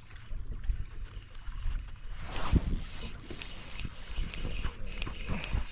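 Water lapping against a kayak hull, with low uneven thumps and a few small knocks; there is a brief louder splash or rustle about two and a half seconds in.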